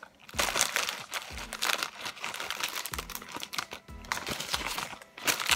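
Plastic bag crinkling as pecans are pulled out by hand and dropped into a salad bowl, over background music.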